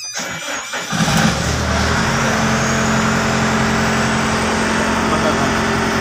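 Perkins diesel engine cranking and catching about a second in, then running steadily. It starts now that the blown fuse feeding its electric fuel pump has been replaced.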